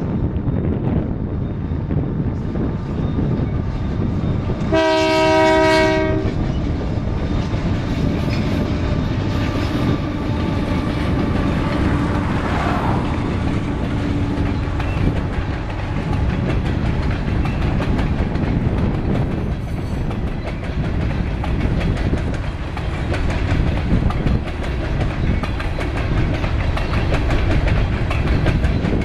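Canadian Pacific GE AC4400CW diesel locomotives rumbling past at speed, with one short horn blast about five seconds in. A long string of covered hopper cars follows with a steady rolling wheel noise.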